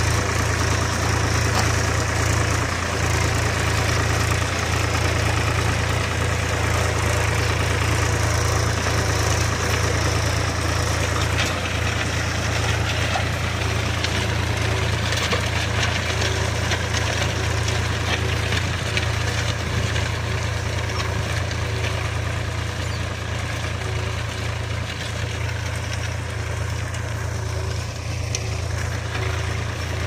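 Tractor's diesel engine running steadily as it pulls a plough through a field.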